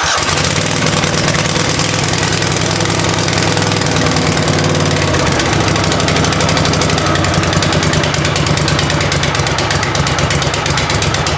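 Toro lawn tractor engine running steadily on choke at half throttle, just after catching on a cold start.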